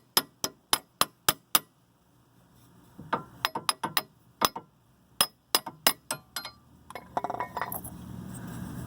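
Light metallic taps of a small hammer on a steel bearing-press-kit disc, driving a dust seal into a front wheel bearing housing. A quick run of about four taps a second, a pause, then more taps ending in a fast flurry near the end.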